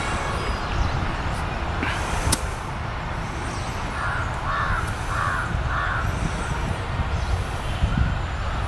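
A crow cawing four times in quick succession about four seconds in, over a steady low rumble, with one sharp click a little after two seconds.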